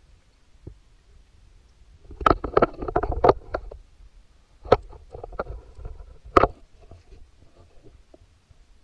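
Water sloshing and gurgling in a cramped underwater habitat, with sharp knocks of diving gear, in two bouts: the first about two seconds in, the second about four and a half seconds in, ending in a loud knock.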